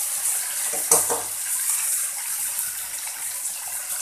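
Ground onion-tomato paste sizzling as it is spooned into hot oil and ghee in a kadhai, a steady high hiss, with one sharp knock about a second in.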